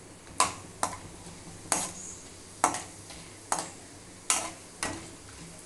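A perforated steel ladle stirring whole spices in a kadai, scraping and knocking against the pan seven times in a slow, uneven rhythm. Ghee sizzles softly underneath.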